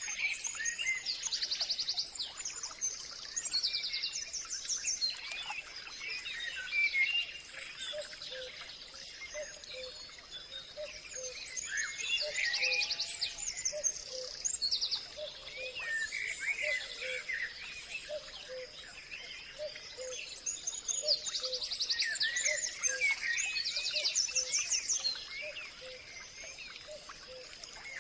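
Several wild birds singing and calling together. Bursts of fast, rattling trills come back three times, about every ten seconds, over a steady high tone. A low note is repeated over and over from about a third of the way in.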